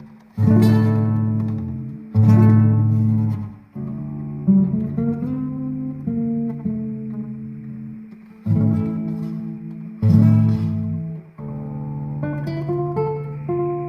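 Background music: acoustic guitar, with strummed chords and picked notes in between.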